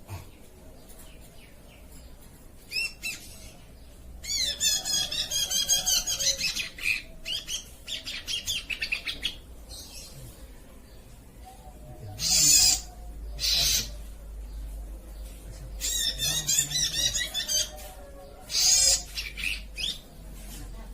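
Oriental magpie-robin (kacer) singing: spells of rapid, varied warbling phrases a few seconds long, broken by short harsh rasping notes.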